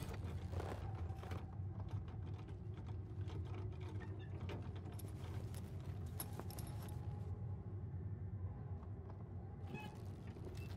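Light metallic clicking and rattling from a jointed scrap-metal figure moving, over a low steady hum. The clicks thin out after about seven seconds and return briefly near the end.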